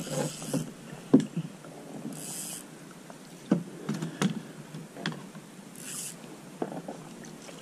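Plastic kayak hull being knocked and bumped a handful of times, about six dull knocks, with three short hissy bursts of water splashing.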